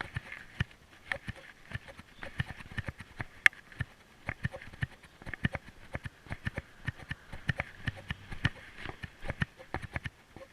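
An animal making rapid, irregular popping clicks, several a second, with one sharper pop about three and a half seconds in.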